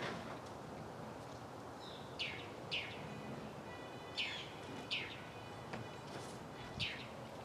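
A small bird chirping: about five short, high, falling chirps at uneven intervals over steady background noise.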